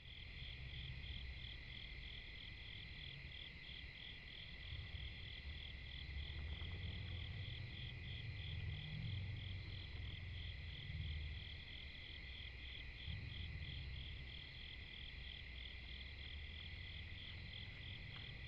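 Night-time insect chorus of crickets and katydids: a steady high trill with a rhythmic pulsing call repeating two or three times a second, over a low rumble.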